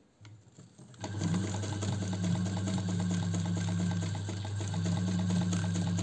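Singer 216 zigzag sewing machine (1954), driven by its 60 W electric motor, starts about a second in and sews a straight stitch at a steady speed: a smooth, even motor hum with the rapid, regular ticking of the needle and hook mechanism. Very quiet and soft-running.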